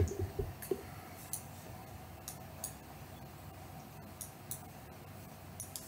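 Faint, irregular soft clicks, about ten in all, from a cat's tongue and mouth as one cat licks and grooms another.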